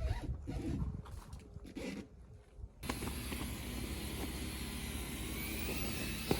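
A few short, muffled handling noises, then from about three seconds in a steady rushing drone of an aircraft passing over, with a faint whine rising near the end.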